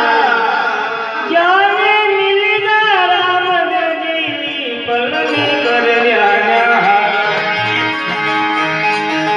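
Rajasthani devotional bhajan performed live: a man's voice sings long, ornamented phrases that slide between notes, over the steady held chords of a harmonium and the strokes of a dholak hand drum.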